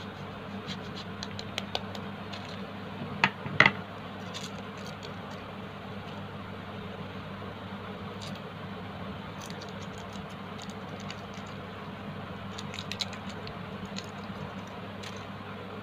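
Cheese being grated on a flat metal hand grater over a plastic bowl: small scrapes and clicks, with two sharp knocks a little over three seconds in. Near the end comes the crinkle of the cheese's foil wrapper being peeled back. A steady low hum runs underneath.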